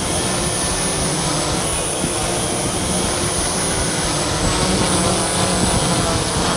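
DJI S900 hexacopter's six rotors buzzing steadily as it hovers low and descends to land, getting a little louder after about four and a half seconds.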